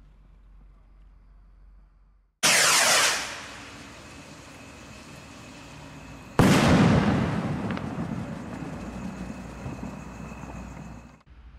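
Category F3 firework rocket (Brothers 'Special Ring') launching with a loud whoosh that falls in pitch as it climbs away. About four seconds later its shell bursts with a sharp bang that echoes and rumbles away over several seconds.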